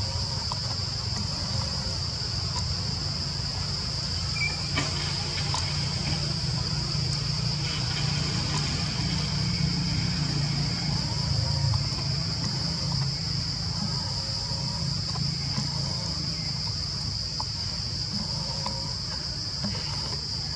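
Forest ambience: a steady, high-pitched insect drone, with a low rumble underneath and a few faint clicks.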